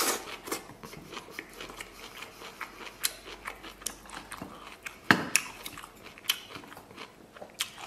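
Close-miked chewing of a mouthful of rice: many short, wet mouth clicks, with a sharper click about five seconds in.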